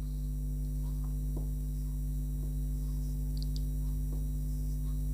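Steady low electrical mains hum, with a few faint ticks from a marker writing on a whiteboard.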